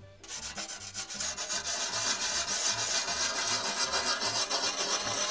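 A wetted sanding stone rubbed along the cut edges of a 3 mm glass pane, a steady gritty rasping that takes off the sharp edge of the freshly cut glass.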